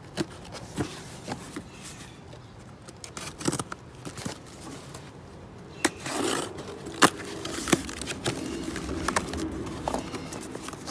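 Utility knife slitting the packing tape on a cardboard box, then the box's flaps pulled open and rustled: scattered clicks and scrapes, with a sharp snap about seven seconds in.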